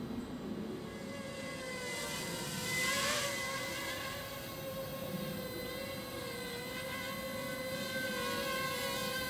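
Ladybird micro quadcopter's electric motors whining steadily, the pitch wavering a little as the throttle shifts, with a brief louder rush of noise about three seconds in.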